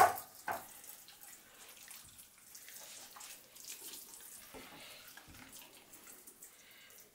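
A short knock right at the start, then faint wet squishing as hands press and spread a mushroom cream stuffing under the loosened skin of a raw turkey.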